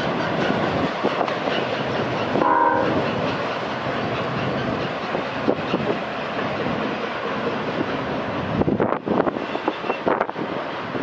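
Freight train of autorack cars rolling past, a steady rumble of wheels on rail with clickety-clack. A short horn note sounds about two and a half seconds in, and low buffets of wind hit the microphone near the end.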